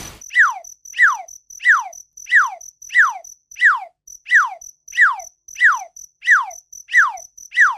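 A whistled call sliding downward in pitch, repeated twelve times at an even pace of about three every two seconds, over a faint, high, pulsing chirp like crickets.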